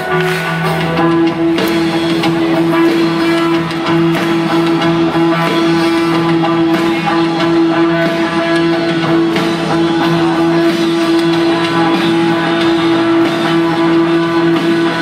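Rock band playing live, electric guitar to the fore over a steady held note, loud in the hall.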